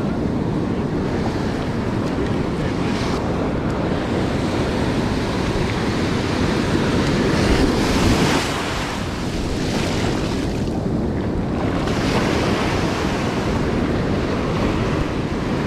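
Ocean surf breaking and washing up the sand, with wind buffeting the microphone. A wave breaks close by about eight seconds in, the loudest moment.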